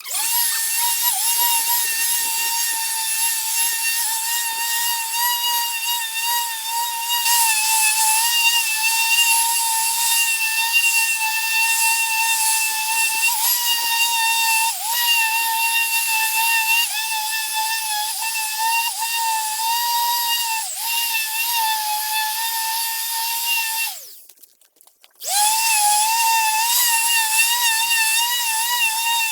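A power tool's electric motor whining at a steady high pitch, dipping slightly now and then. It cuts out for about a second near the end and then starts up again.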